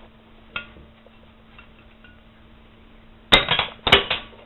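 Metal clinks from the valve stem just removed from an old steel Freon cylinder being handled: a small click about half a second in, then two sharp ringing metal-on-metal clinks about half a second apart near the end.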